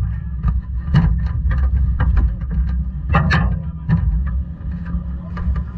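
Irregular clicks and knocks of the driver moving about in the cockpit of the parked quarter midget race car, close to the car-mounted camera, over a steady low rumble.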